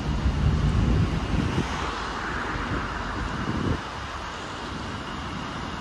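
City street traffic noise: a vehicle rumbles and swishes past, dying away about four seconds in, leaving a steadier background hum.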